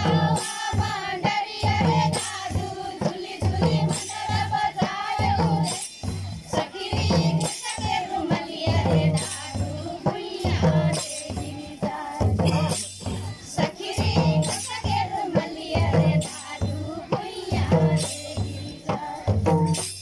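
Live Tharu Sakhiya folk dance music: a hand-played barrel drum beats a steady repeating rhythm under group singing, with metallic jingling over the top.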